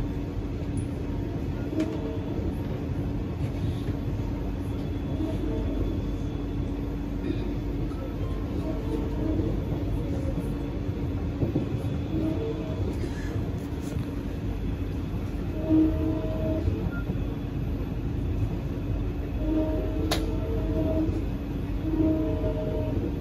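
Inside the passenger car of a Kawasaki & CSR Sifang C151B metro train running between stations: steady running noise with a low hum, and short higher tones coming and going, more often in the second half.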